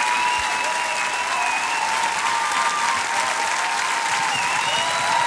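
Studio audience applauding and cheering, with thin held whistle-like tones over the clapping.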